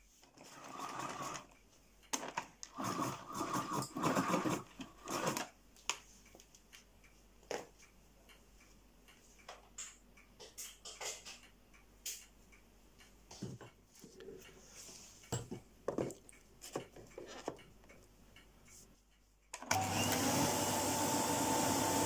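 Electrolux 345 cylinder vacuum cleaner being handled on the carpet: a few seconds of irregular handling noise, then scattered light clicks and knocks. Near the end its motor switches on suddenly and runs with a steady whine.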